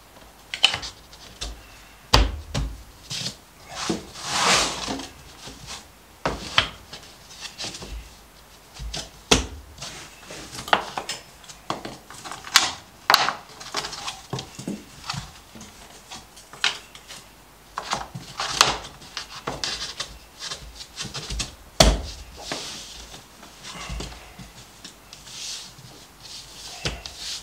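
Laminate floor planks being slid into place and pressed together: irregular wooden knocks and clicks with short scraping sounds of board against board.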